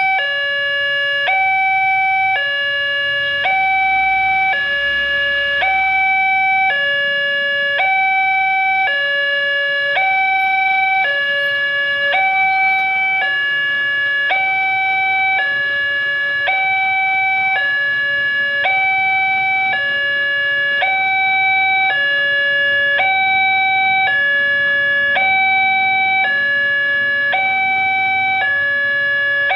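Railway level-crossing warning alarm from the crossing's loudspeaker: two electronic tones, one higher and one lower, alternating about once a second in a steady, unbroken cycle. It sounds while the barrier is down and the red lights flash, warning that a train is approaching.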